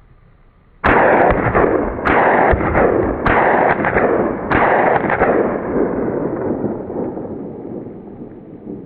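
Four shots from a Marlin Model 60 semi-automatic .22 LR rifle, about a second and a quarter apart, each sharp crack followed by a rolling echo that fades away over several seconds after the last shot.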